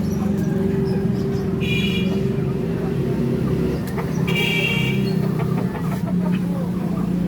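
A steady low motor hum, like an engine running, with two short high-pitched flat tones, each under a second, about two and four and a half seconds in.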